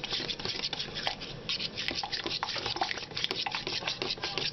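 Spoon stirring cream of mushroom soup and milk together in a plastic cup, with quick, irregular scraping and clicking against the cup's sides and bottom.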